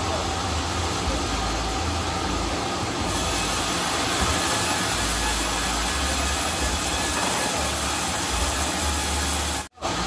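Sawmill machinery running steadily: an even, hissing noise with a low rumble underneath, cutting out for a moment near the end.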